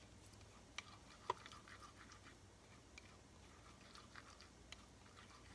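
Faint wet scraping and soft clicks from a silicone spatula stirring ube powder and hot water into a thick paste in a ceramic bowl, with one sharper tap against the bowl about a second in.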